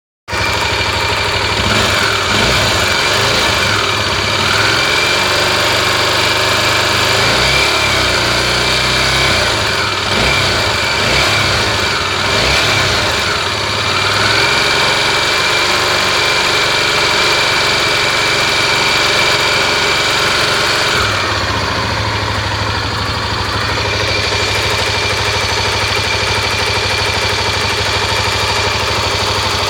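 Engine of a Honda Tornado or Chevrolet Tornado, hot, idling and revved lightly a few times in the first two-thirds, with a steady high-pitched whine running throughout; this is the noise the owner hears when the engine is hot.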